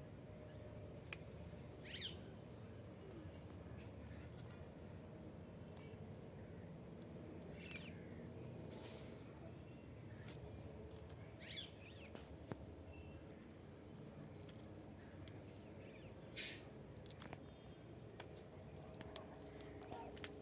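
Outdoor field ambience: an insect chirping in a steady high pulse, about three pulses every two seconds, with a few short bird calls and a couple of brief rustles.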